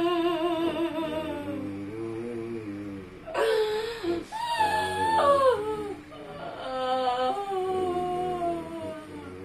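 A woman wailing and moaning in long, wavering, drawn-out cries. Her voice slides down at the start, breaks into two louder cries a few seconds in, then holds another long moan. The healer treats it as a jinn possessing her.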